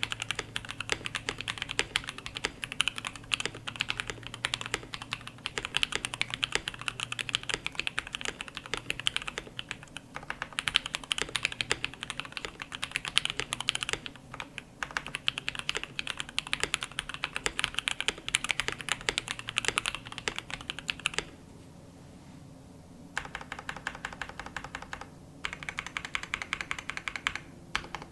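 Fast typing on a KBD67 Lite custom mechanical keyboard with lubed and filmed 67 g C3 Tangerine linear switches, a POM plate and PBT keycaps. It is a steady rapid stream of keystrokes with a few brief pauses, then a two-second stop about three quarters of the way through, followed by shorter bursts of typing.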